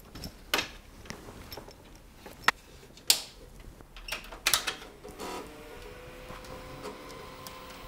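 Scattered clicks and knocks from handling an open steel PC case and plugging a monitor cable's connector into the graphics card's port, one knock about three seconds in ringing briefly. About five seconds in, a faint steady electronic hum with a high tone sets in.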